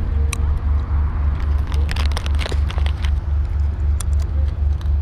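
A loud low rumble pulsing about four times a second, with scattered sharp cracks of airsoft gas pistols and shotguns firing and BBs hitting, bunched in a quick flurry about two seconds in.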